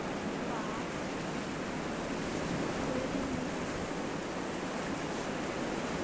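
Sea surf washing onto a sandy beach: a steady rush of breaking waves.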